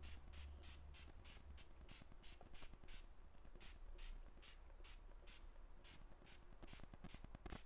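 Faint rapid spritzes of a spray bottle of leather water-proofer, short hisses at about four a second, applied to the bottom of a leather handbag.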